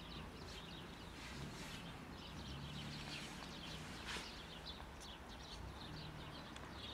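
Small birds chirping in quick, irregular calls, over a faint low hum, with one sharper click about four seconds in.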